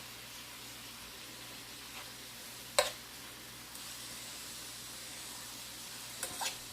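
Marinated beef steak sizzling steadily as it fries in a hot pan. A sharp click comes a little under three seconds in, and two lighter clicks near the end.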